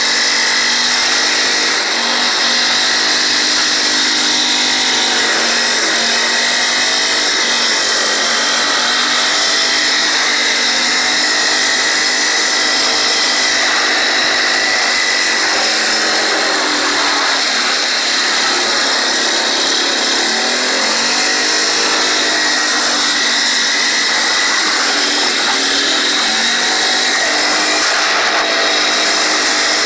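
Four-stroke ATV engine running under way, its pitch rising and falling as the throttle is opened and eased, over a steady hiss.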